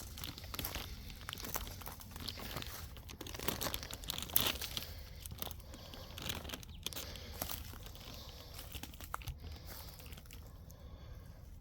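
Irregular crunching and crackling of footsteps through dry leaf litter and brush, easing off near the end.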